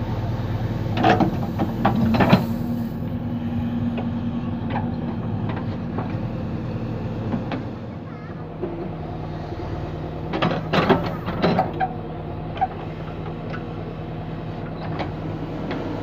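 JCB 3DX backhoe loader's diesel engine running steadily while the steel backhoe bucket digs and scrapes through a gravel pile. There is a clatter of stones against the bucket about a second in, and again about ten seconds in.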